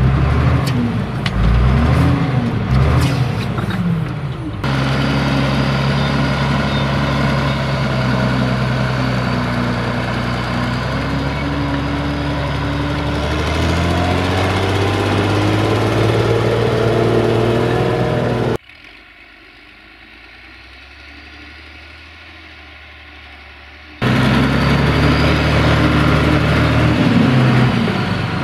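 Fiat 1380 DT tractor's diesel engine working hard under the load of a plough in wet soil, its pitch swinging up and down at first with a few sharp knocks, then running steadily with a slow rise in pitch. For about five seconds past the middle it is heard much more faintly, before running loud again with its pitch rising and falling.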